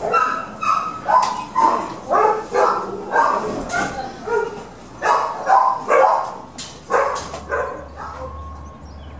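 Dogs in shelter kennels barking, about two barks a second, stopping about eight seconds in.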